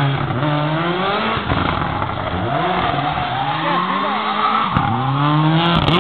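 Mitsubishi Lancer Evolution rally car's turbocharged four-cylinder engine revving hard through a drift, its pitch climbing and dropping again and again, with the tyres squealing as the car slides. A few sharp cracks come near the end.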